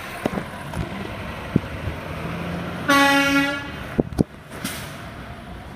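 Garbage truck's horn toots once, a short pitched blast, over the low running of the truck's engine as it pulls away. Two sharp clacks follow about a second after the toot.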